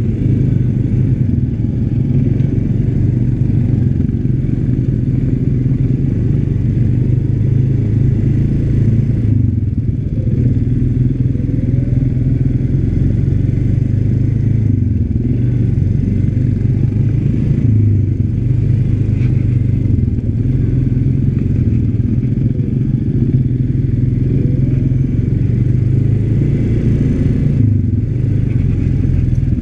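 ATV engine running steadily under way on a dirt trail, its pitch shifting up and down a little as the throttle changes.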